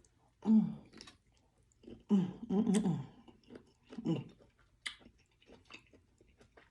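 A person chewing seafood with a full mouth: wet smacking and small irregular mouth clicks, with a few short muffled mumbling sounds in the first few seconds.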